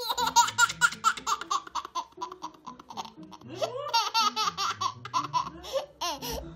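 A one-year-old girl laughing hard in quick runs of giggles: a long run at the start, another after a short pause, and a brief burst near the end. It is the excited laughter of a toddler hiding from her parents as they come close to finding her.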